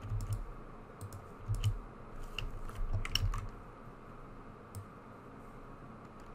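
Computer keyboard keys and mouse buttons clicking in small scattered clusters, most of them in the first half, with a faint steady room hiss underneath.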